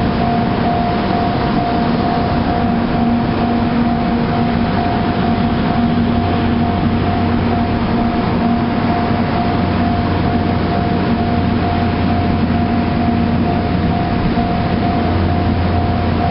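Railway level-crossing alarm ringing in a steady, repeating tone, with the low rumble of an N700 series Shinkansen train that grows stronger near the end.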